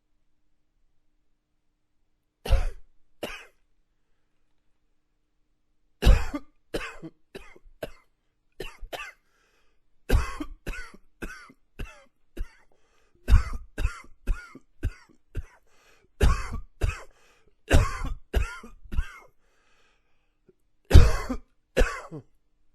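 A man coughing in repeated fits of several short coughs each, with brief pauses between the fits; the first double cough comes about two and a half seconds in.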